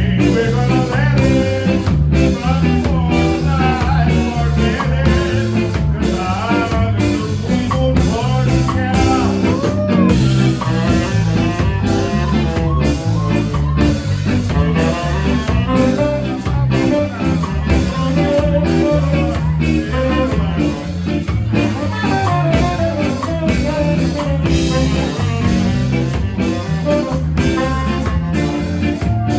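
Live ska band playing with a steady beat: electric guitar, drums and saxophone, with a man singing.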